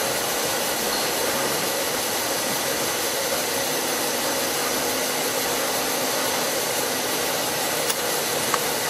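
Cincinnati Contour Master vertical milling machine running with its spindle turning: a steady, even whir from its 1 HP motor and step-pulley belt head, with a faint hum, running smooth.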